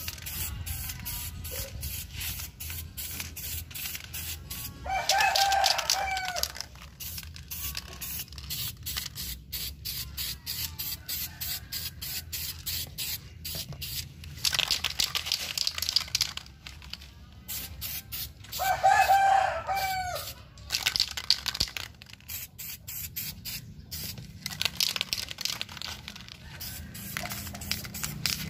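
Aerosol spray paint can hissing in repeated short bursts. A rooster crows twice, about five seconds in and again a little before twenty seconds in; the crows are the loudest sounds.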